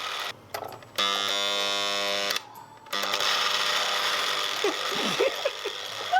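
Electric hand mixer whipping egg whites, its motor cutting out twice, briefly each time, and running as a steady whine between the drop-outs, then rougher and noisier after the second one. The mixer is failing; its owner says it died while she was whipping.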